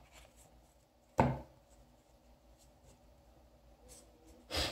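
Trading cards being handled and set down on a playmat: a short thump about a second in and a brief card brush near the end.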